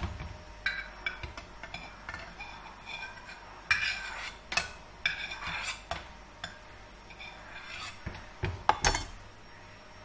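Kitchen dishes and metal utensils clinking and clattering in a string of short, ringing knocks, the loudest a few seconds in and near the end.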